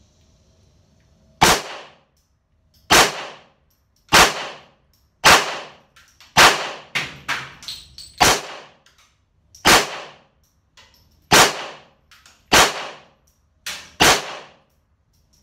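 Ten pistol shots from a Taurus TX handgun, fired at an even pace about one every second and a half. Each is a sharp crack with a short echo under the range's roof. A few fainter cracks come between the fifth and sixth shot, about seven seconds in.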